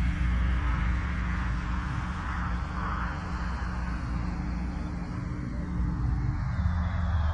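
An engine running steadily at low speed, with an even low hum and no clear revving.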